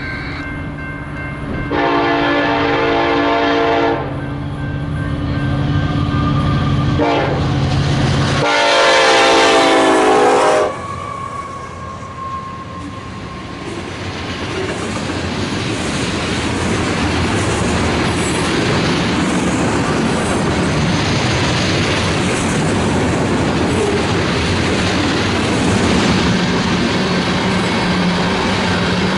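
Union Pacific diesel freight locomotive's air horn sounding for the grade crossing: a long blast, a short one, then a long one. The train then rolls through steadily, freight cars clacking over the rail joints, with a deeper diesel engine tone from a distributed power unit coming in near the end.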